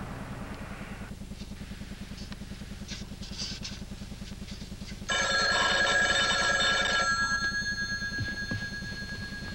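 A telephone bell rings once, a little after halfway, for about two seconds, its tone lingering as it fades. A steady low hum runs underneath.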